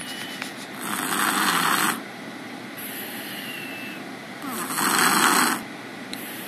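Snoring: two loud snores, each about a second long and roughly four seconds apart, with a steady quieter hiss between them.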